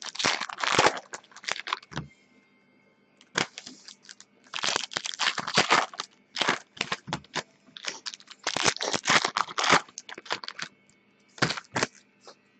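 A trading-card pack wrapper being torn open and crumpled by hand, crinkling and crackling in repeated bursts with short pauses between them.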